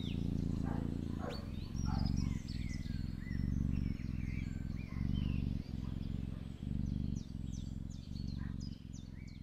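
Kitten purring right beside the microphone: a low, steady rumble that pulses in short phases, about every two-thirds of a second, with each breath in and out.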